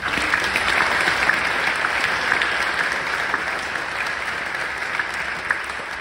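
Audience applauding, starting suddenly and loudest at first, then slowly fading.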